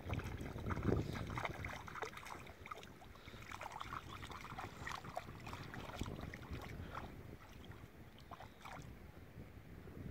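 Faint small splashes and lapping of shallow river water as a dog wades and paws through it, a scatter of short wet ticks over a low rumble.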